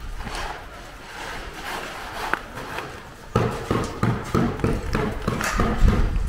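Footsteps of a person walking on paved ground, a regular run of steps that starts about halfway through, with wind rumbling on the microphone.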